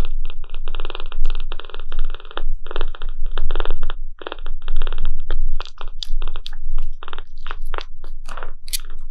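Kitten purring close to the microphone: a raspy, fast-pulsing purr in phases of up to about a second, one after another with short breaks, giving way to shorter scattered clicks in the last few seconds.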